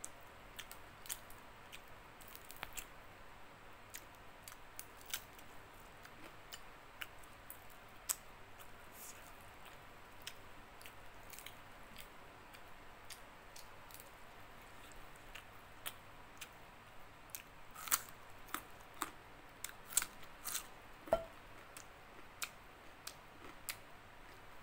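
Close-miked eating of fried bacem fish: scattered sharp clicks and crunches of chewing and of fingers picking the crisp fish apart, busier about three-quarters of the way through.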